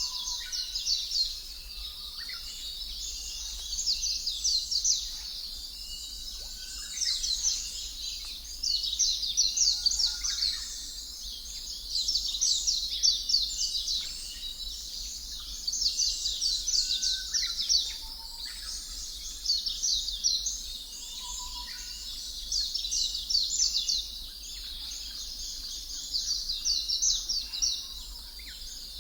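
Birds chirping in a nature-ambience track: rapid high-pitched trills repeat in bursts every second or two, with occasional softer, lower whistled notes between them.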